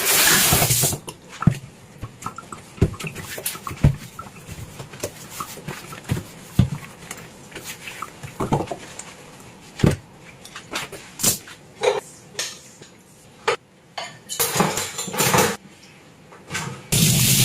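Dishes and cutlery knocking and clinking against each other as they are handled and set down during hand washing. A running kitchen tap stops about a second in, runs briefly again later, and comes back on near the end.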